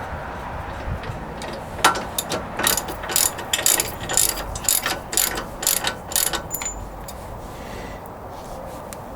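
Hand ratchet wrench with a socket clicking in quick strokes, about two a second, as it turns a wheel hub assembly bolt; the clicking runs for a few seconds and stops about two-thirds of the way in.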